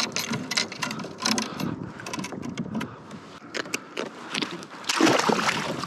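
Fishing reel and tackle clicking and rattling as a freshly jigged blue runner is reeled up and handled on a kayak, with a louder rush of noise about five seconds in.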